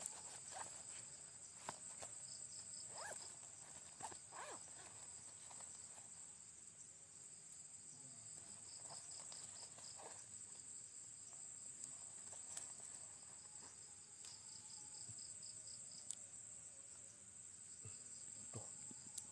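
Night insect chorus: a steady high-pitched drone, with cricket chirps coming in short pulsed trains now and then. Occasional faint clicks and knocks sound under it.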